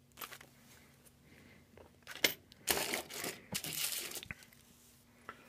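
Heavy-duty plastic zip-lock bag crinkling as it is handled, in a few bursts, the longest from about two and a half to four seconds in. A short click near the end.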